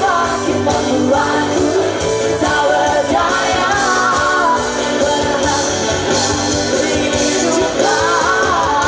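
Pop-rock song with a lead singer over a band with drums.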